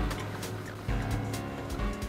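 Background music with steady low held tones and a few light clicks.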